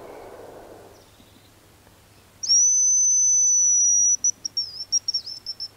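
Hazel grouse decoy whistle blown close by, imitating the grouse's song to call the bird in. It gives one long, steady, very high whistle lasting about a second and a half, then a quick string of short broken notes.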